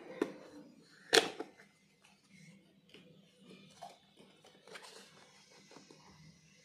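Cardboard smartwatch packaging handled by hand: two sharp clicks near the start, the loudest about a second in, then soft scrapes and rustles as the box is slid out of its sleeve and opened.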